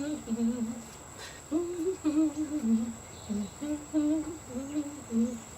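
A woman humming a wordless tune: a run of short held notes that step up and down in pitch.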